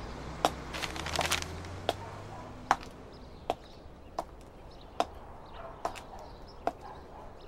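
Footsteps of hard-soled shoes on pavement at a steady walking pace, a little more than one step a second. In the first second and a half a low vehicle rumble fades out, with a brief rustle about a second in.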